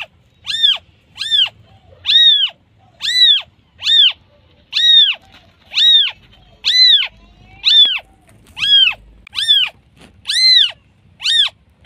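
Newborn kitten meowing over and over, a little more than one short, high-pitched call a second, each rising and then falling in pitch: a kitten calling for its mother.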